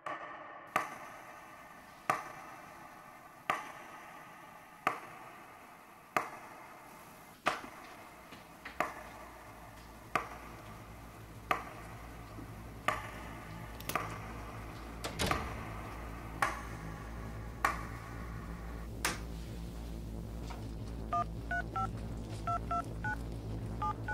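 A sharp electronic ping repeating about every second and a third, each ringing out, over a low hum that grows in partway through. The pings stop near the end, and a few short telephone keypad tones follow as a number is dialed.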